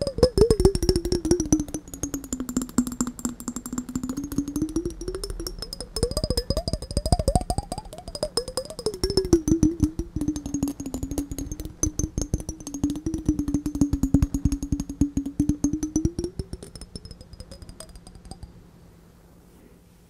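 Fingers tapping rapidly on a glass jar held right at the microphone. The jar rings with a tone that slides down and back up in pitch as the tapping goes on. The tapping fades out near the end.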